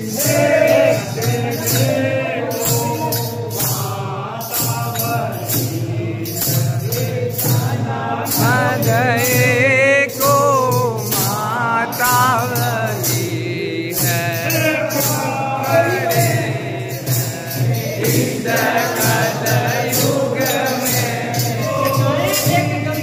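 Group of men singing a Kumaoni khadi holi song together, with a hand-played drum and jingling metal percussion keeping a steady beat.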